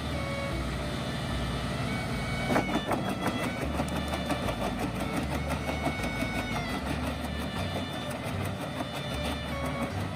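Wood chipper running and chewing through logs, a steady rattling, crunching machine noise with a sharp crack about two and a half seconds in.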